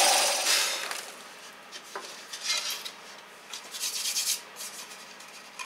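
A drill press motor running down in the first second. Then dry scraping and rubbing of wood on wood in short bouts as the freshly drilled wooden panel is slid and lifted off the plywood backing board, with a couple of light knocks.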